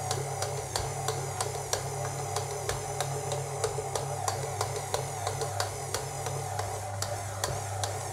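KitchenAid Artisan stand mixer running steadily with its dough hook kneading pizza dough: an even motor hum with light, regular ticks several times a second.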